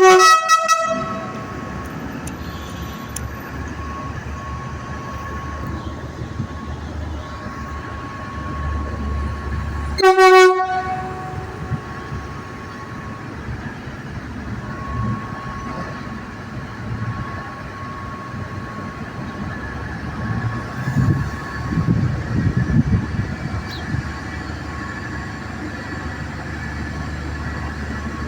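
Horn of the MT15417 diesel multiple unit: the end of one blast at the start, then a second short blast about ten seconds in. In between, the diesel engine runs at a high idle with its exhaust loud, and it pulses louder in a stretch about two-thirds of the way in.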